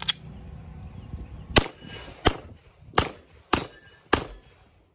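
A Glock 34 Gen 4 9mm pistol fired about six times in a steady string, shots roughly half a second to a second and a half apart, with a faint ring of struck steel targets after a couple of them.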